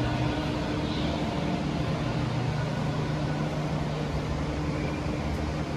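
Steady low mechanical hum with a few held low tones, shifting slightly in pitch partway through.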